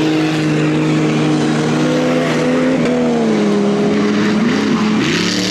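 Off-road race 4x4's engine running hard at steady high revs, its pitch wavering about three seconds in and shifting again near the end.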